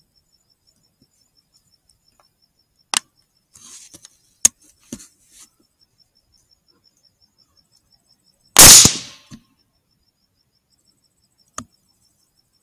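A single suppressed 6.5 Grendel rifle shot through a Dead Air Sandman L suppressor, a sharp loud crack about two-thirds of the way in that dies away quickly. It is preceded by a few small clicks, and crickets chirp steadily throughout.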